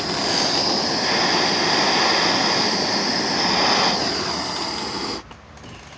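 Gas torch flame burning on high with a steady, loud hiss, played on a metal egg to heat-colour it; the flame cuts off suddenly about five seconds in.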